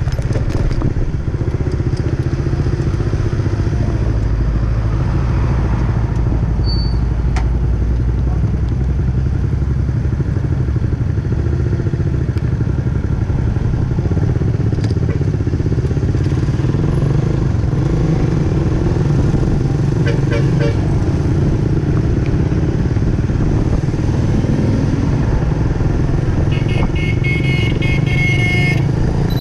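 Motor scooter riding along in traffic, its engine running steadily under heavy low wind rumble on the microphone. A vehicle horn sounds near the end.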